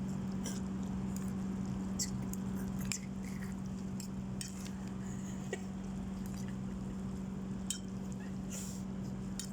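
Steady low hum with scattered faint clicks and small taps.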